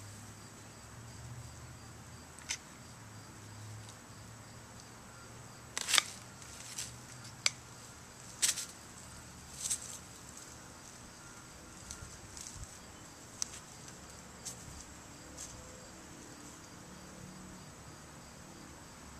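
Crickets and other insects chirping in a steady high drone, with scattered sharp snaps and rustles from pumpkins being cut off their dry vines and picked up, the loudest about six and eight and a half seconds in.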